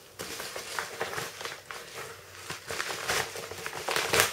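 Product packaging being handled, with irregular rustling and crinkling and a few sharper taps and knocks about three and four seconds in.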